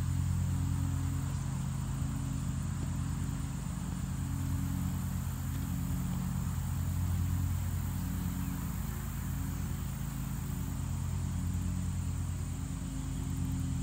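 Steady low engine hum, as of a running vehicle or passing traffic, with a constant faint high hiss above it.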